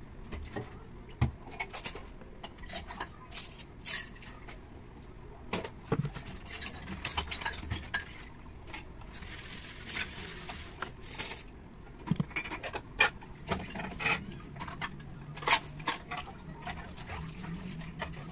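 Hand tools clinking and tapping against the metal parts of a pressure washer's motor and pump, in many scattered sharp clicks, with a brief hiss about ten seconds in.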